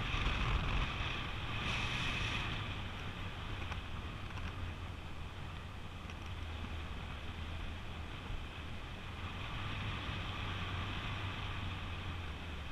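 Wind rushing over the microphone of a camera carried in paraglider flight: a steady low rumble, with a brighter hiss about two seconds in.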